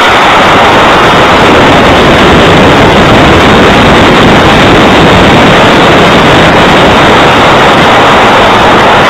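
Loud, steady rushing noise picked up by the on-board camera of an Estes Mammoth model rocket climbing after launch on an F15 motor: the motor's burn and air streaming past the airframe.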